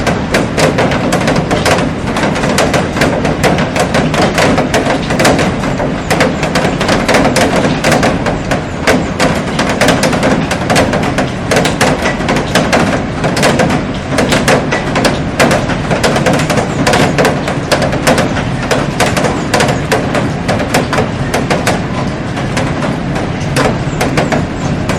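Heavy rain falling on a glass roof and garden: a dense, steady hiss packed with sharp hits of individual drops striking the glass.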